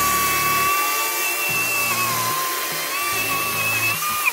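CAT 60V 16-inch brushless cordless chainsaw running at full speed with a steady high whine as it cuts through a tree branch. The pitch dips briefly under load about halfway through, and it winds down as the trigger is let go at the very end.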